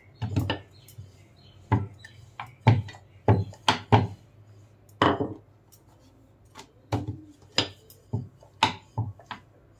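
Wooden rolling pin rolling out dough on a round wooden board, the pin and board knocking in a dozen or so short, irregular wooden knocks.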